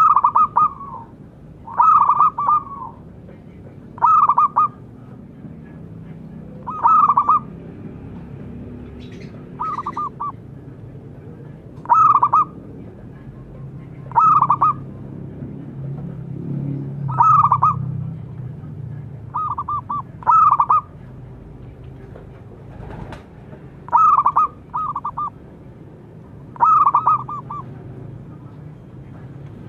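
Zebra dove (perkutut) calling: about a dozen short cooing phrases, one every two to three seconds, over a low steady background rumble.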